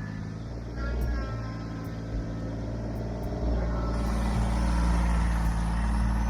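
Small diesel engine of a compact machine running under working load. It gets louder and heavier about three and a half seconds in.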